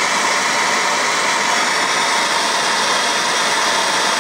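Hand-held self-striking gas torch burning with a steady hiss as it heats a copper pipe joint for soldering.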